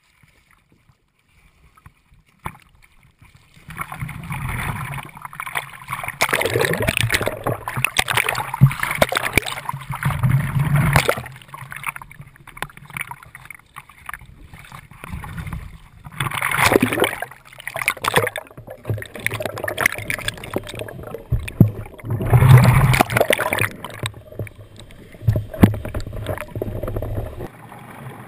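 Sea water sloshing and splashing around a camera held at the ocean surface, in irregular loud surges with a low rumble, after a quiet first few seconds.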